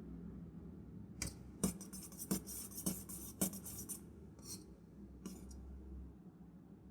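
Metal kitchen vessels being handled and scrubbed: about five sharp knocks with harsh scraping between them, then two short scrapes.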